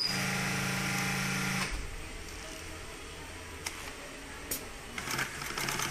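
Industrial sewing machine stitching at a steady speed for about a second and a half, then stopping, leaving a low motor hum and a few light clicks.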